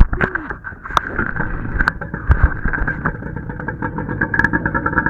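Stand-up jet ski engine running steadily on the water, its whine holding an even pitch, with several sharp knocks and bumps scattered through it.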